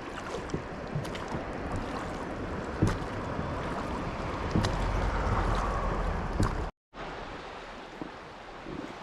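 Rushing water and wind noise around a small boat, with scattered knocks and bumps. The sound cuts out abruptly for a moment near the end and comes back quieter.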